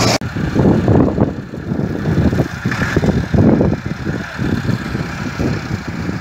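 Tractor-driven KSA straw reaper and its tractor running, an uneven rumble that rises and falls irregularly.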